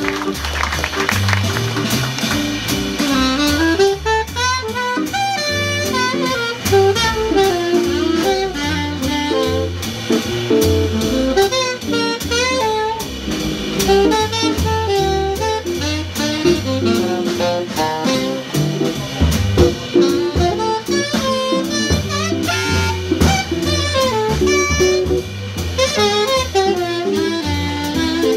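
Live jazz band playing, a saxophone leading with a melodic line over bass and drum kit.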